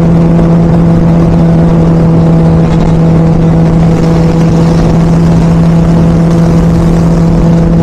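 Benelli 600i motorcycle's inline-four engine running at steady cruising speed, a constant-pitched drone with wind rush over the microphone.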